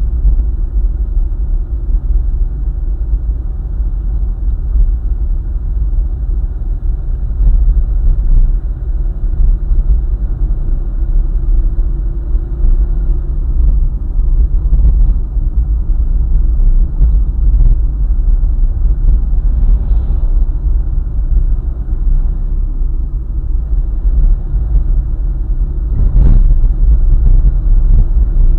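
A car driving on a highway: a steady low rumble of engine and road noise, with a steady hum that fades out about halfway and one short sharp knock near the end.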